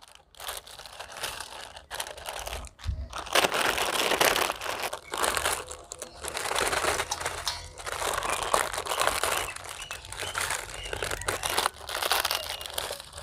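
Foil-lined potato-chip packets crinkling and rustling in irregular bursts as they are torn open and shaken out over a steel plate.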